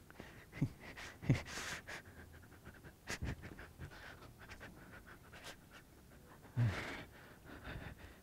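A man panting and grunting with exertion in short, heavy, irregular breaths, with a couple of sharp knocks, probably feet on the stage floor.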